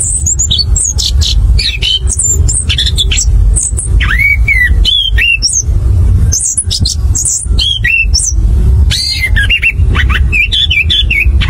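Chestnut-capped thrush (anis kembang) singing a fast, varied rolling song (ngerol) of short high whistles, slurs and trills in an unbroken run, over a steady low hum.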